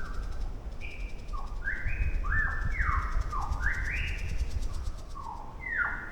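Lyrebird singing a run of clear whistled notes, each a short held tone that slides up or down in pitch, overlapping and echoing through a forested gully. A steady low rumble lies underneath.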